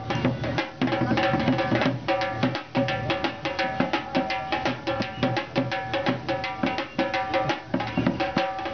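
Dholak, a two-headed barrel drum, played by hand in a fast, steady rhythm of many strokes a second, with a held droning note beneath.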